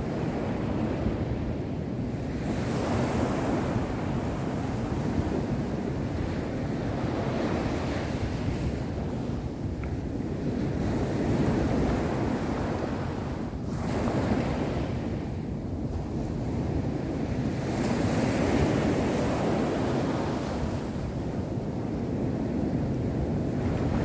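Small waves breaking and washing up a sandy beach: a continuous surf wash that swells into a louder hiss a few times as waves break and run up the shore.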